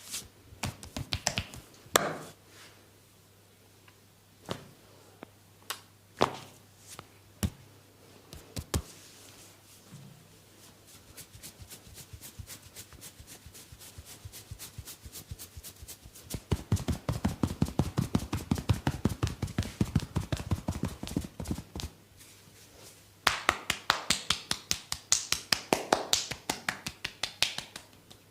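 A barber's hands striking a client's body in rapid percussive massage strokes: two long runs of quick, evenly spaced taps, after a few scattered single slaps and clicks.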